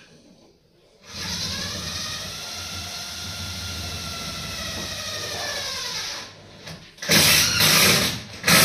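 Handheld power drill running for about five seconds in a steady whine, speeding up at the start and winding down at the end, then two louder, harsher bursts near the end as it works again.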